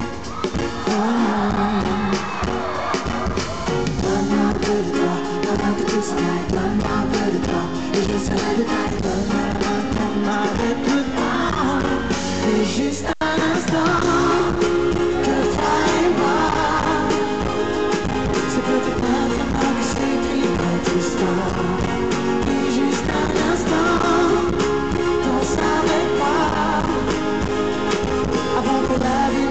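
Live French pop song in concert: singing over a band with acoustic guitar and a steady beat, with a momentary dropout in the sound about 13 seconds in.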